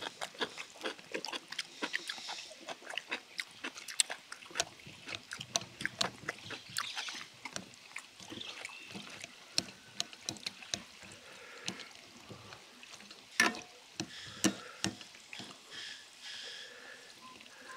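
Wooden chopsticks clicking and scraping against stainless steel bowls as noodles are stirred into broth: irregular light taps throughout, with one sharper knock about three-quarters of the way through.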